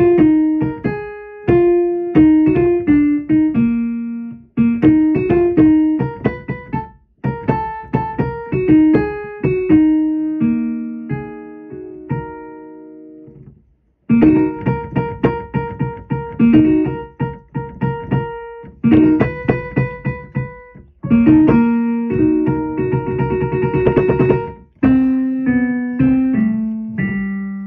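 Electric keyboard playing a melody on a piano-like voice, each note starting sharply and fading away. The playing breaks off briefly about halfway, then picks up again with a quick run of notes before slower falling notes near the end.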